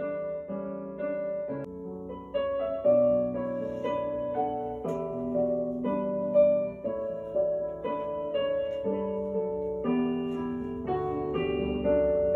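Slow background piano music, with held notes and chords changing about every second.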